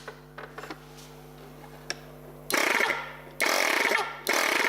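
Air Dragon portable 12-volt air compressor, opened up, its motor and piston air pump run in three short bursts of under a second each, starting about two and a half seconds in. A few light clicks come before.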